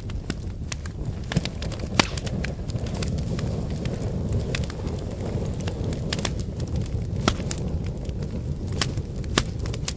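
Wood fire burning: a steady low rumble of flame with irregular crackles and sharp pops from the firewood, the loudest pop about two seconds in.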